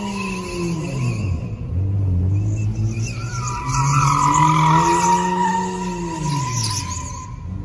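A car spinning donuts: its tyres squeal steadily while the engine revs dip about a second in, climb again through the middle and fall off near the end.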